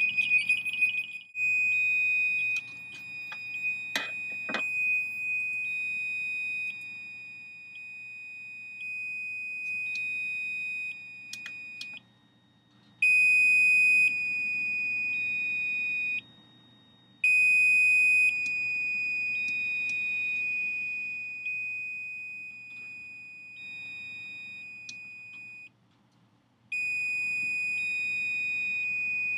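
Piezo buzzers of a homemade 7400-logic drum machine sounding a high-pitched beeping tone. The tone is held for stretches of a few seconds and cuts in and out abruptly, its loudness shifting as the sequencer plays. There are two sharp clicks about four seconds in.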